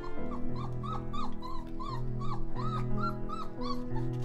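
Four-week-old Weimaraner puppies whimpering in a quick run of short, arching cries, about three to four a second, over background music with sustained notes.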